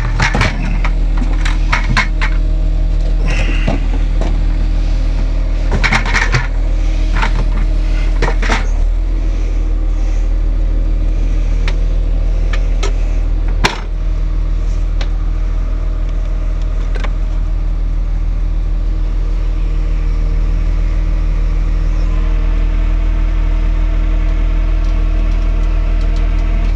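A running engine drones steadily underneath. Over it, small parts and packaging clatter and click as a bucket and a box of bagged parts are rummaged through in the first several seconds. A single sharp knock comes about halfway through.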